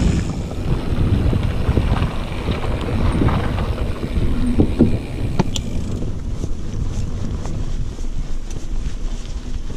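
Wind buffeting the microphone of a mountain biker's body-mounted action camera, over the rumble of knobby tyres rolling fast on a dirt and gravel trail. From about halfway there are scattered sharp clicks and rattles from the bike over bumps.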